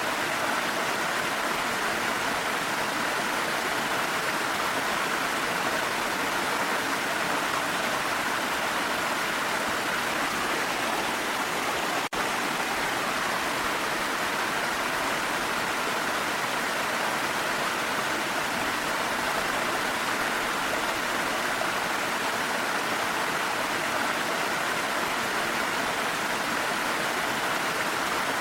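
Waterfall flowing: a steady, even rush of falling water, broken only by a split-second dropout about twelve seconds in.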